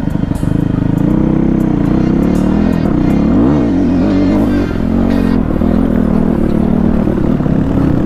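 Dirt bike engine running under way on a rough gravel track; its pitch wavers up and down quickly about three to four seconds in as the throttle is worked. Scattered clicks and clatter sound over it.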